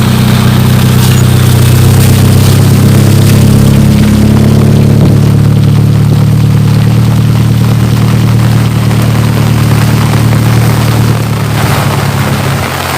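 A motor vehicle's engine running steadily close by, with rain falling. The engine sound drops away near the end, leaving the rain.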